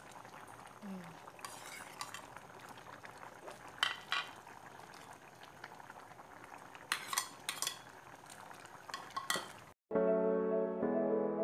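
Metal utensils clinking against a pot or dishes, a few separate clinks over a soft steady hiss. Background music starts near the end.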